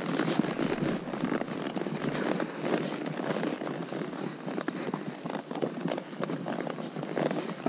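Horse hooves clopping and scuffing on rock and loose gravel at a walk, with irregular sharp clicks of shod hooves on stone.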